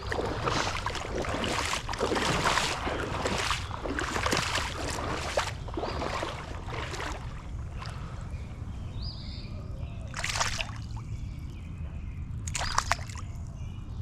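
Hooked smallmouth bass thrashing and splashing at the surface as it is brought in, with bursts of splashing for the first several seconds. Then quieter water with a couple of separate splashes, over a steady low rush of creek water.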